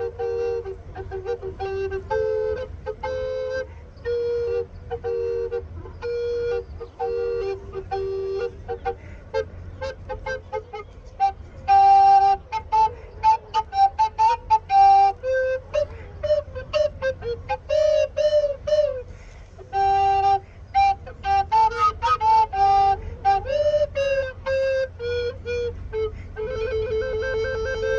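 Two tenor recorders playing in two-part harmony. A short phrase repeats with notes about a second long, then the line moves into quicker runs and ornamented notes, and near the end it settles on two held notes sounding together.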